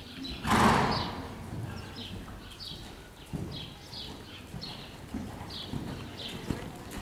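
Hoofbeats of a horse going round on the lunge in a sand arena. There is a loud, short rush of noise about half a second in.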